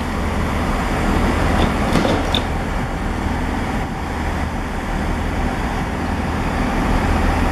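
Class 165 diesel multiple unit's underfloor diesel engines running with a steady low drone, getting a little louder about a second in.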